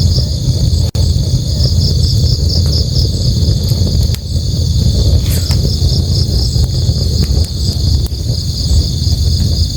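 Crickets chirping in rapid, even pulses over the steady low rush of a river, with a few faint crackles from a campfire.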